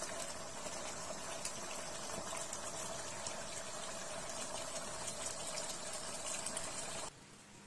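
Thick coconut-milk sauce with chicken feet simmering in a pan, bubbling with a steady stream of small pops and crackles over a faint steady hum. It cuts off abruptly near the end.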